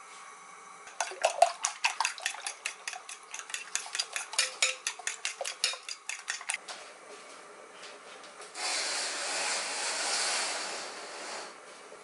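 Fork beating eggs in a glass bowl: quick clicks of the tines against the bowl, about five a second, for several seconds. After a short pause comes a steady hiss lasting about three seconds.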